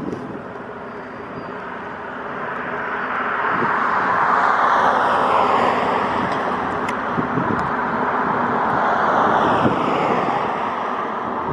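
Rushing engine noise of a passing aircraft, swelling about three seconds in and easing off near the end.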